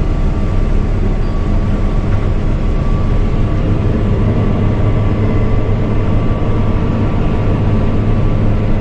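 Case combine harvester running steadily, heard from inside its cab: an even low drone from its Iveco engine and machinery, with a thin, steady whine above it.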